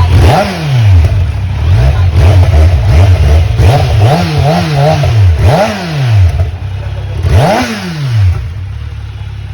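Kawasaki Z900's inline-four engine through its stock exhaust, revved in repeated throttle blips over idle, several quick blips in a row around the middle, the last about three quarters of the way through. It then settles back to a steady idle.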